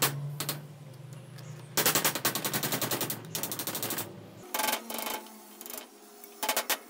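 Flat screwdriver blade scraping and levering under a metal nameplate on an electric motor's housing, a fast rattling chatter of metal on metal in two spells.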